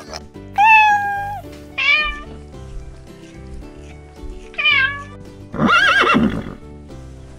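Background music with animal calls over it: a cat meows three times in the first five seconds, then a horse whinnies about six seconds in.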